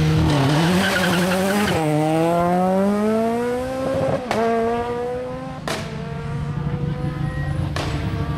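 Rally car launching off the stage start with a brief burst of tyre noise, its engine pitch rising steeply as it accelerates hard through the gears. A rally car's engine then revs up again, with a few sharp cracks at the gear changes.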